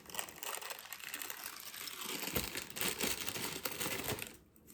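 Plastic cracker wrapper crinkling and crackling as it is handled and crackers are taken out, stopping shortly before the end.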